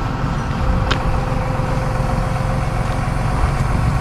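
Tow truck engine idling with a steady low rumble, with one sharp click about a second in.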